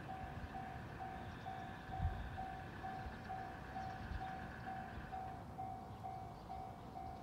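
Railway level-crossing alarm ringing, a single electronic bell tone repeating about twice a second, over a faint steady hum that stops about five seconds in and a few low thumps.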